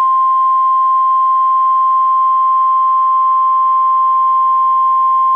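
NOAA Weather Radio 1050 Hz warning alarm tone: one loud, steady single tone held unbroken. It is the alert signal that precedes a new warning broadcast.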